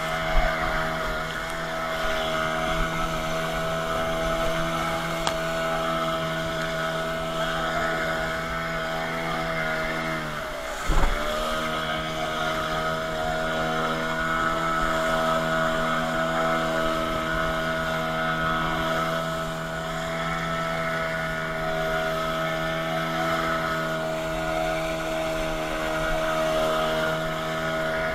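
Small boat's outboard motor running steadily at speed. About eleven seconds in, its pitch plunges sharply and recovers within about a second, with a brief knock.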